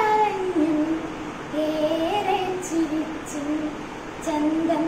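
A young woman singing a slow Malayalam song solo, with long held notes that step and glide between pitches and a short breath pause near the end.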